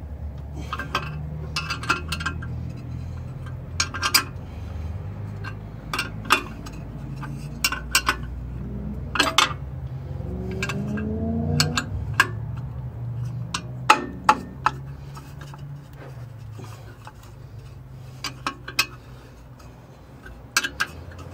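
Irregular sharp metallic clinks and clicks of steel nuts and washers being handled and fitted onto the clamping studs of a lathe face plate.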